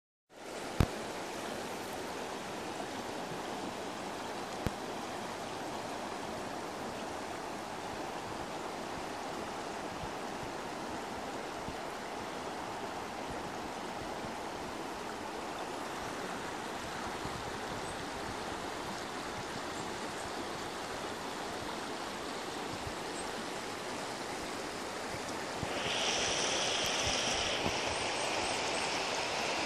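Shallow river running over stones in a riffle: a steady rushing of water, turning louder and brighter about four seconds before the end. A sharp click about a second in.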